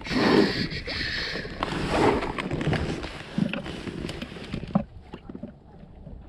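Clicks and knocks of hands handling fittings in a kayak's pedal-drive well, over a rushing noise with irregular swells that drops away about five seconds in, leaving only faint ticks.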